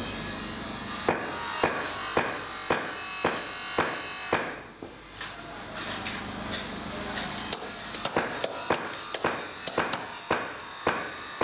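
Hammer strikes on a carbon steel knife blank being forged, a sharp ringing blow about twice a second over steady workshop noise. After a short pause near the middle the blows come faster toward the end.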